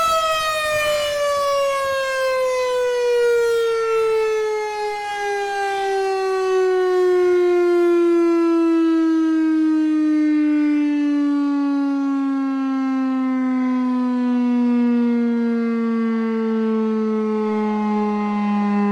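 Federal Signal STH-10 outdoor warning siren winding down. Its tone falls slowly and continuously from high to low as the siren coasts down after its steady signal is cut off.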